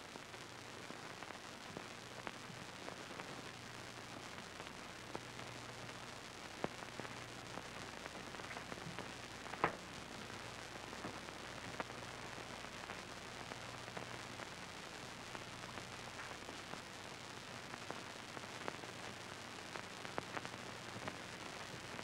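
Surface noise of an early sound-film soundtrack: a steady hiss and crackle with a faint low hum and scattered clicks, one louder pop about ten seconds in.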